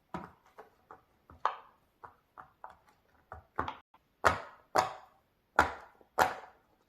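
Plastic fidget toy being worked by hand, giving a string of sharp clicks and snaps at about two a second; they get louder from about halfway through.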